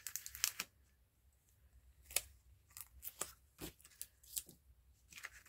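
A scattered series of short, light taps and clicks from hands working with paper and ink pads, with a quick cluster at the start and more spread out after.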